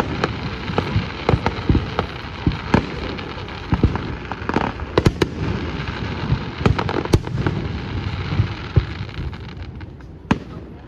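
Fireworks display: a rapid barrage of sharp bangs from bursting aerial shells over a continuous rumble, thinning out near the end with one last loud bang.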